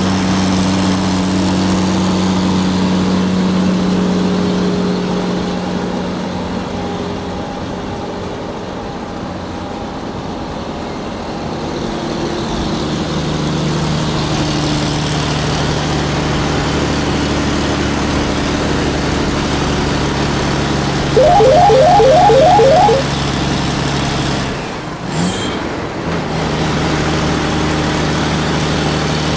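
Truck engine idling steadily, its pitch settling a little lower about halfway through. A quick run of loud beeps sounds about three-quarters of the way in, and the engine sound breaks off briefly just after.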